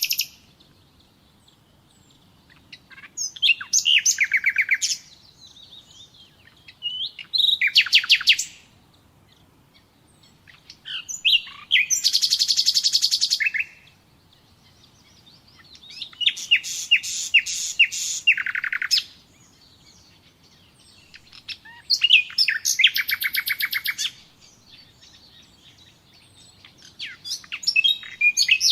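Nightingale singing in short phrases, about every four seconds, with pauses between. Each phrase is a fast run of rapidly repeated notes.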